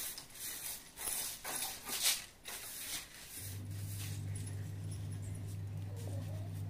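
A few short bursts of rustling, like cloth being handled, in the first two and a half seconds. A steady low hum comes in about three and a half seconds in and holds.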